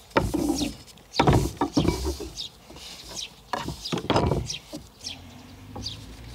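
Rolling pin pushed and dragged over homemade noodle dough in several rough strokes, with a small bird chirping repeatedly in short falling notes.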